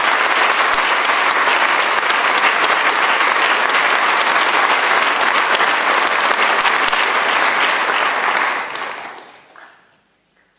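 Audience applauding: steady clapping from many hands that dies away about nine seconds in.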